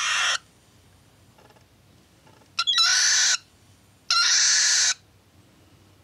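Cockatiel hen hissing three times, each a short breathy hiss of under a second, typical of broody, nest-guarding behaviour.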